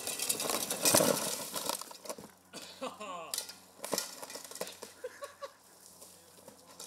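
Small bike's tyres scrubbing and skidding over dry, leaf-strewn dirt, loudest about a second in. Voices call out around three seconds in, and there is a single sharp knock just after.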